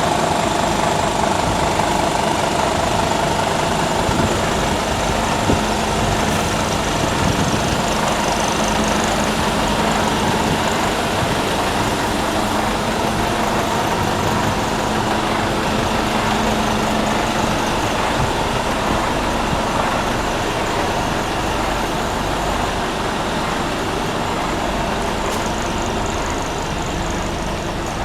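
Scania P280 truck's diesel engine idling steadily.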